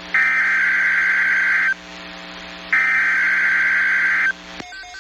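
NOAA Weather Radio EAS/SAME header: two harsh, buzzing bursts of digital alert data, each about a second and a half long with a second's gap between them. It is the coded header that opens an alert, here for a severe thunderstorm watch. Near the end the bursts give way to a quieter, rapidly pulsing pattern of tones.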